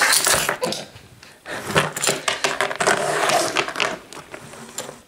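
Small plastic toy stroller rolled across a wooden tabletop, its wheels rattling and scraping, with clicks of plastic toy figures being handled.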